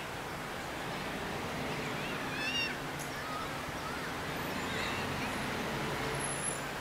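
Steady outdoor background noise with a faint low hum. About two and a half seconds in, a bird gives a short run of high chirps, and a fainter call follows near the end.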